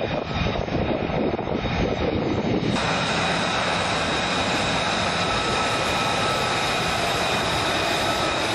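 F-35B Lightning II's Pratt & Whitney F135 turbofan. First a rumble as the jet rolls along the runway, then, about three seconds in, a steady high-pitched whine with several held tones as it taxis close by at low power.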